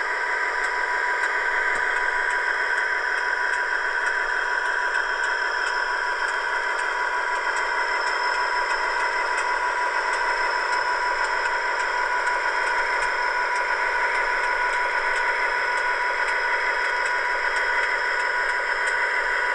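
Dapol OO gauge Class 59 model locomotive's onboard sound decoder playing a Class 59 two-stroke diesel engine running steadily as the model moves. It comes through the model's tiny speaker, thin and with no bass, with faint regular ticks over it.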